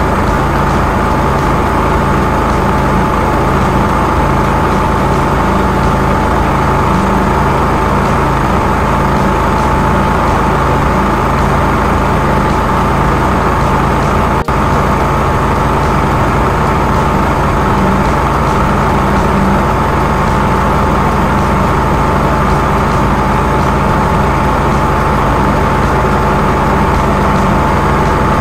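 Engine and pump of a high-pressure drain-jetting machine running at a steady drone with a constant whine, driving water through the hose to clear tree roots from a storm-drain pipe. The sound breaks once, briefly, about halfway through.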